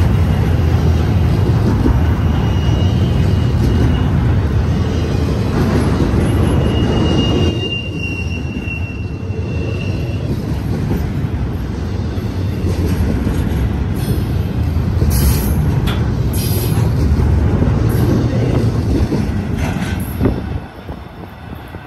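Double-stack intermodal freight cars rolling past on curved track, a steady rumble of steel wheels on rail with a thin wheel squeal through the first half. The rumble eases a little about seven seconds in and fades near the end as the end of the train passes.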